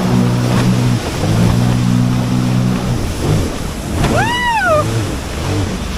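A boat engine running steadily over surf and wind noise, dropping out briefly about a second in and stopping near three seconds in. Around four seconds a short, high whistle-like call rises and falls once.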